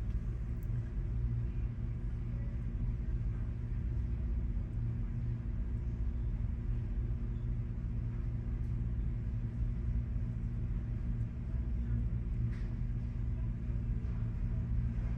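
Steady low hum and rumble, several constant low tones with no change, with a few faint clicks.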